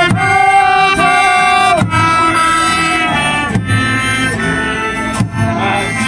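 Group of people singing together with instrumental accompaniment, holding long sung notes, with a wavering note near the end.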